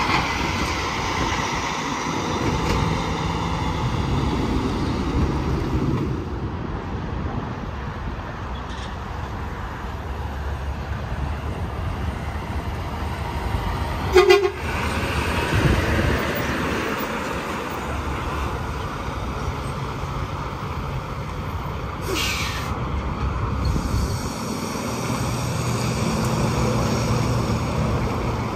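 Interstate traffic with heavy trucks passing one after another. About halfway through comes one short air-horn blast, and about three-quarters through a brief hiss.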